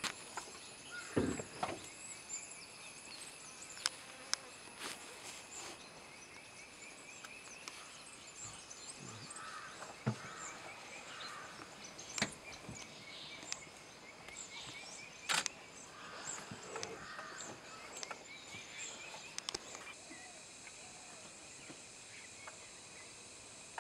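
Meadow ambience of insects trilling steadily with scattered bird chirps, broken by a handful of sharp clicks and a few soft thuds.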